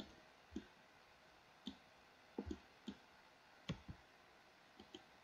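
Faint, irregular clicks of a computer mouse and keyboard keys being pressed, about ten in all, some in quick pairs, over near silence.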